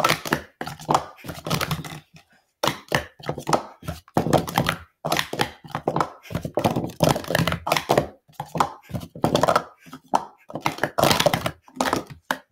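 Speed Stacks sport-stacking cups clattering and clacking against each other and the table in quick, irregular runs as they are stacked up and down.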